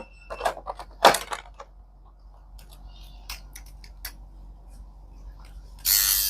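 Plastic clicks and clacks as a Gemei 3-in-1 grooming trimmer is handled and its nose-hair trimmer head is fitted, over a faint low hum. A loud burst of hissing noise comes in near the end.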